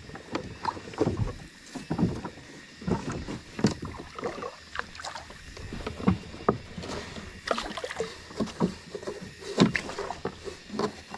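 Irregular knocks and clatters against the hull of a small boat, with rope scraping, as a rope is tied around a pipe on the boat's side.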